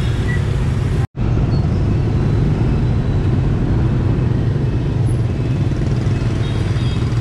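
Dense motorbike and scooter traffic running steadily, a continuous hum of many small engines. The sound drops out for a split second about a second in.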